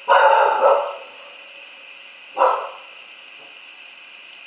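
A dog barking: two barks in quick succession at the start, then a single bark about two and a half seconds in.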